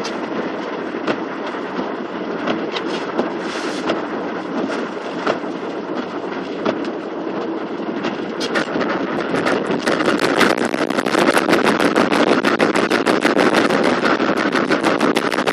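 Car driving through floodwater: a steady rushing wash with many sharp ticks of water spray, growing louder and denser about ten seconds in.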